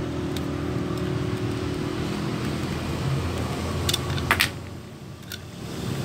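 A few sharp plastic clicks as AAA batteries are pried out of a remote control's battery compartment, three clicks in the second half, over a steady low mechanical hum in the background.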